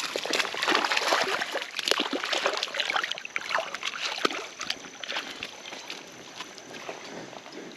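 Water splashing and sloshing in quick irregular bursts as a hooked fish thrashes at the surface, loudest in the first few seconds and dying down toward the end.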